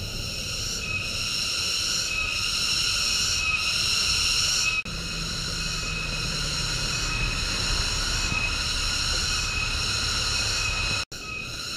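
Steady high-pitched buzzing drone of a tropical insect chorus, pulsing slightly, over a low rumble. It breaks off for an instant about five seconds in and again near the end.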